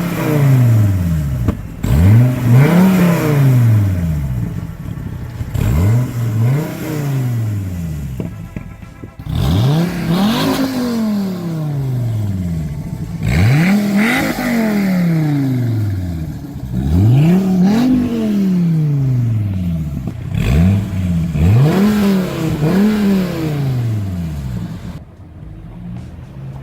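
Stock-exhaust 8.4-litre V10 of a 2014 Dodge SRT-Viper GTS being free-revved again and again. There are about ten blips, some in quick pairs, each climbing fast and then falling back more slowly to idle.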